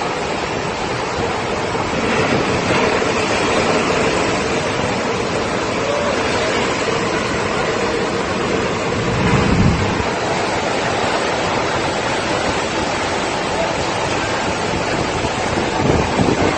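Steady rushing noise of hurricane wind and water, with a louder low rumble briefly about nine seconds in.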